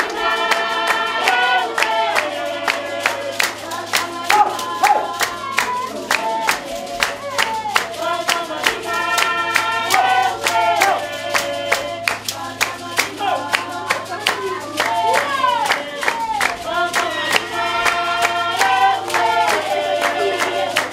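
Basarwa (San) traditional dance song: a group of voices singing in overlapping parts, with steady rhythmic hand-clapping.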